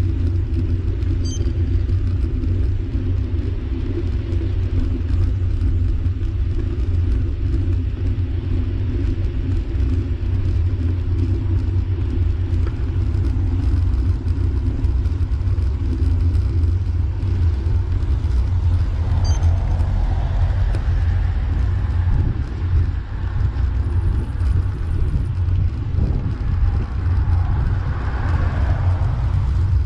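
Steady low rumble of wind and road vibration on a camera riding on a bicycle climbing a mountain road. A motor vehicle passes near the end.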